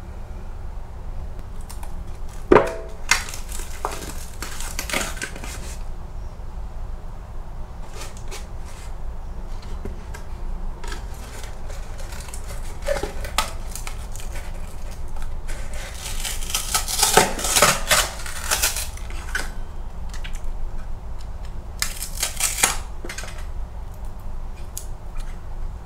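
Crinkling and crackling of a scorched cardboard ramen pot with an aluminium-foil inner layer as it is handled, folded and torn open, coming in several bouts, with a sharp knock about two and a half seconds in.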